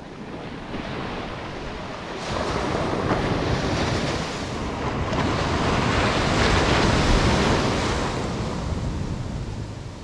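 Ocean surf at the shoreline: a small wave breaks and washes up the sand. Its rush swells from about two seconds in, is loudest a little past the middle and fades near the end, with wind rumbling on the microphone.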